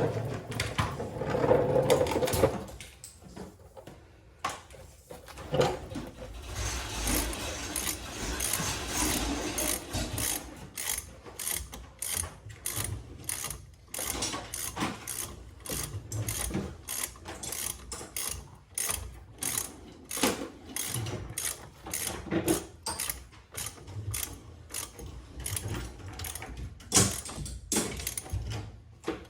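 Ratchet wrench clicking in quick runs as bolts on a car's front brake caliper bracket are run down, after a louder metallic clatter in the first couple of seconds.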